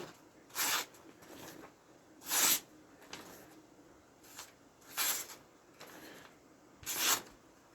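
Four short rasping slicing strokes, spaced about two seconds apart: a cheap utility knife's blade cut through paper as a sharpness test. The blade is only kind of sharp.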